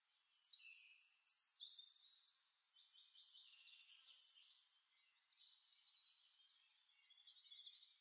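Faint birdsong: several birds singing at once, high chirps, whistled glides and quick trills overlapping, a little louder between about one and two seconds in.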